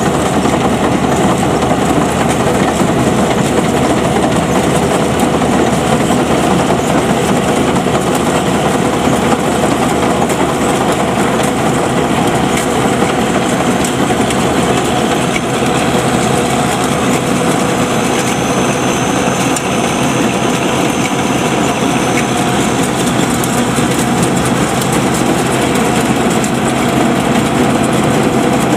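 Home-built Vietnamese rice combine harvester running steadily as it cuts rice in a flooded paddy, a constant engine-and-machinery noise.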